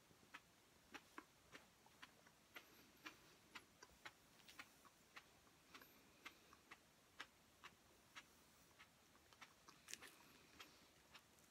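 Near silence: faint, sharp clicks at uneven spacing, about two a second.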